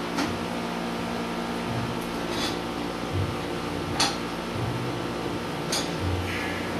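Steady machine hum in a small room, with four sharp clicks and knocks and a couple of dull thuds as things are handled on a workbench; the loudest knock comes about four seconds in.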